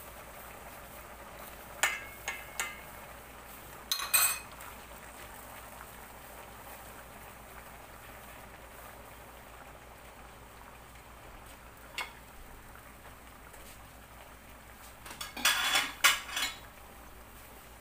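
Metal spoon clinking and scraping against a stainless steel cooking pot and a plate in short bursts: a few clicks about two seconds in, more about four seconds in, a single click near the middle, and a louder cluster of clinks near the end. A faint steady hiss runs underneath.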